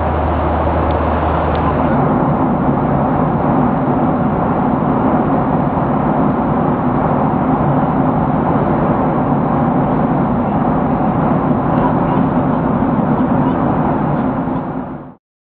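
Steady in-flight cabin noise of a Boeing 737-800: the drone of its CFM56-7B jet engines with the rush of airflow. The low hum shifts about two seconds in, and the sound fades out near the end.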